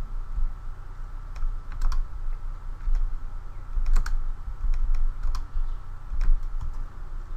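Scattered, irregular clicks from a computer mouse and keyboard, about ten in all, over a steady low hum.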